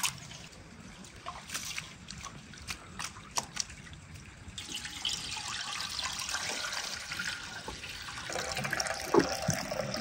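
Hands swishing and squeezing rice in a basin of water, with small splashes and drips. About halfway through, the cloudy rinse water is poured off from the tilted aluminium basin in a steady stream, and a sharp knock sounds near the end.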